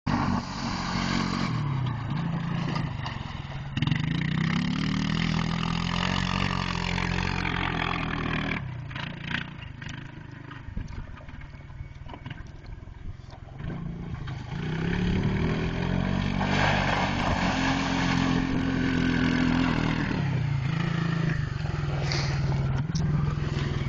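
ATV engine running and revving, its pitch rising and levelling off again and again as it accelerates. It fades about a third of the way through and grows loud again in the second half, as the machine moves away and comes back.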